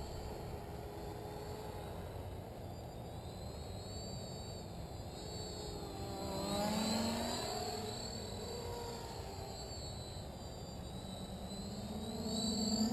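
Quadcopter with four Cobra 2217 950kv brushless motors on 10x4.5 props, flying: a buzzing whine whose pitch rises and falls with the throttle. It swells louder about seven seconds in and again near the end.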